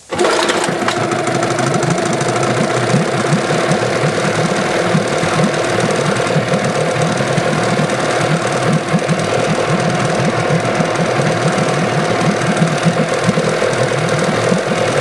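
Yamaha 8 hp two-stroke outboard engine catching suddenly and then running steadily at idle, its carburetor and fuel pump diaphragms freshly replaced to cure a failure to idle unless choked.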